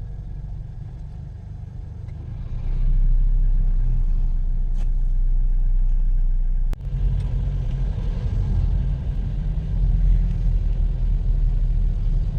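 Low rumble of a road vehicle on the move, heard from on board, growing louder about three seconds in. A single sharp click a little past halfway.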